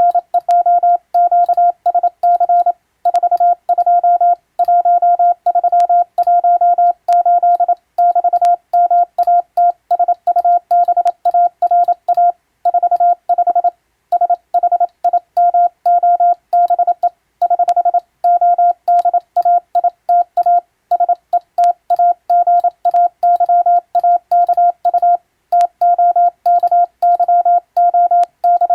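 Hand-sent Morse code: a steady high beep keyed on and off in quick dots and dashes, with brief pauses between words, spelling out a radiotelegram in Latin letters.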